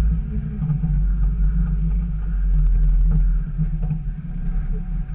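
Jeep Wrangler TJ's engine running under low load as it crawls over a rocky trail, a steady low rumble with a few faint clicks; it eases off a little over three seconds in.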